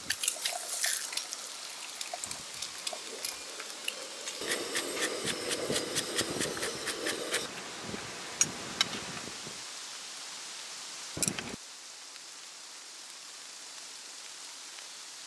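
An egg frying in a hot nonstick pan on a portable gas stove: dense crackling and spitting for about the first seven seconds. After it, a single sharp clink of utensils, then a faint steady hiss.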